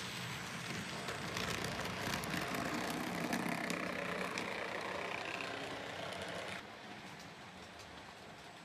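N gauge model train running along the track, a rattling whirr of motor and wheels with many small clicks over the rail joints and points. The noise cuts off suddenly about six and a half seconds in, as the train derails and stalls.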